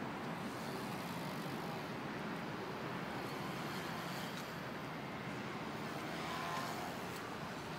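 Steady road traffic noise from the surrounding city streets.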